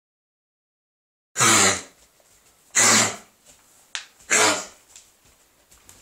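A dog coughing: three harsh, loud coughs about a second and a half apart, after a silent start.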